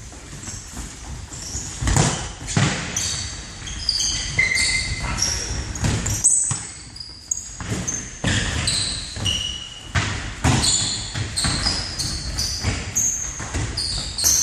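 Indoor football play in a sports hall: many short, high-pitched squeaks of sneakers on the hall floor, mixed with knocks of the ball being kicked and bouncing, echoing in the large hall.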